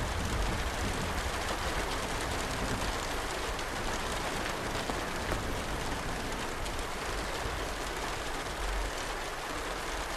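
Steady rain setting in, an even hiss with a low rumble underneath.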